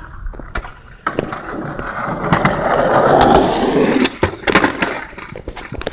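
Skateboard wheels rolling on pavement, getting louder and peaking about three seconds in, followed by several sharp clacks of the board striking the ground.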